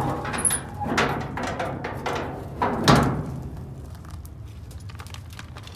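Steel lid and grate of an offset smoker's cooking chamber clanking and scraping, four heavy metal knocks over the first three seconds, then only faint light ticks.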